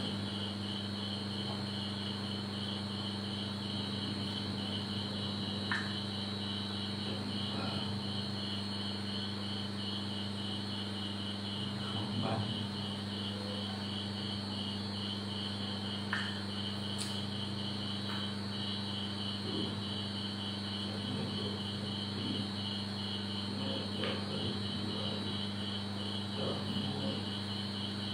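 A cricket chirping in a rapid, even pulse that never stops, over a steady low hum.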